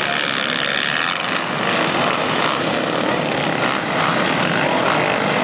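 A pack of racing quad bikes with their engines revving hard together as they power up a sand dune: a dense, continuous, loud drone of many engines at once.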